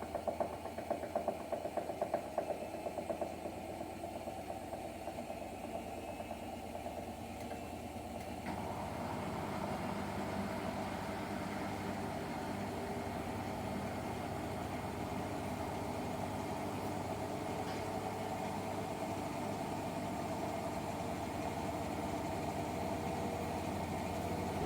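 Hotpoint WMFUG942 washing machine drum turning with a hum and irregular knocks, then about eight seconds in the motor ramps up and the drum spins with a louder, steady hum and whine. The clunking comes from a drum spider that the owner says is off balance.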